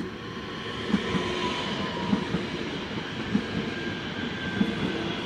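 DB Regio ET 442 Talent 2 electric multiple unit passing, with a steady rolling rush and a faint electric whine. Its wheels knock over the rail joints in pairs about every second and a quarter.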